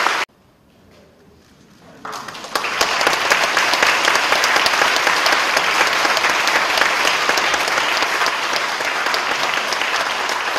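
Congregation applauding in approval, a dense patter of many hands clapping. The applause cuts off abruptly just after the start, and after about two seconds of quiet it picks up again and carries on strongly.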